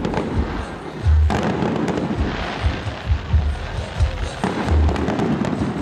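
Aerial fireworks bursting overhead: a dense run of sharp pops and crackling from the exploding shells, with heavier bangs among them.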